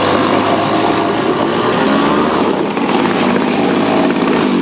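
Small outboard motor running steadily under throttle in a test tank, its pitch dipping and rising slightly partway through.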